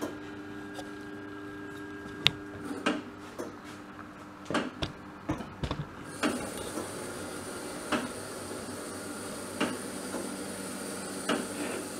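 Robe Colorspot 250 AT moving-head light running its test: a low motor hum and a series of sharp mechanical clicks and knocks as the head and its wheels move, then about halfway through a steady fan-like hiss with a faint high whine starts and runs on under further single clicks.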